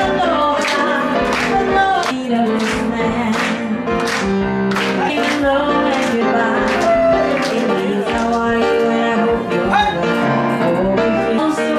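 Live band music with singing over a steady beat, about three beats every two seconds, accompanying a Polynesian dance.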